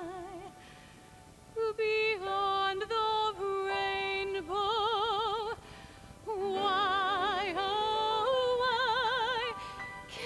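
A woman singing solo, holding notes with wide vibrato, in phrases that pause briefly about a second in and again about halfway through.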